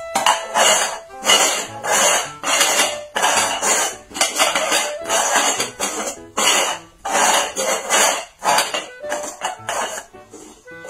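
Upturned dog bowls being slid and shuffled around on concrete: a rapid run of scraping knocks, about two a second, over background music.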